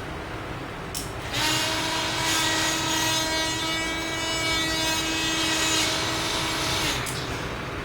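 Drilling machine's motor running at a steady speed, a steady whine that starts about a second in and stops about a second before the end, sagging slightly in pitch as it stops.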